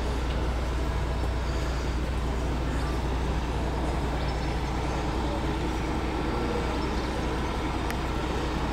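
Steady low rumble of a large diesel engine idling, holding an even pitch, over a background hum of outdoor noise.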